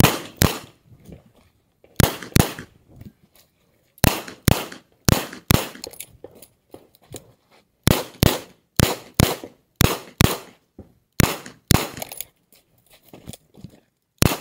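Revolver fired close by, about twenty sharp shots, mostly in quick pairs about half a second apart, with pauses of one to two seconds between the pairs.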